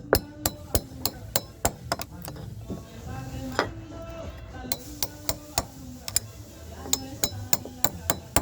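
Caulking mallet striking a caulking iron in runs of sharp knocks, about three a second with short pauses, driving caulking into the seams of a wooden boat's planking. Background music plays under the strikes.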